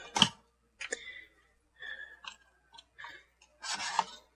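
Hard plastic toy figure being handled: a few sharp clicks of plastic parts, a brief faint squeak, and a longer rustling rub near the end.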